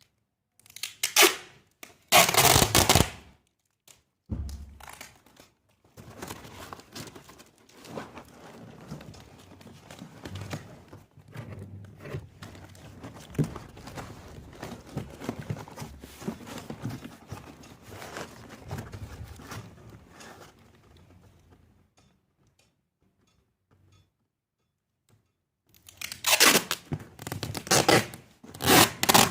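Packing material being torn and handled: two loud tearing rips near the start and several more near the end, with crinkling, rustling and dull knocks in between.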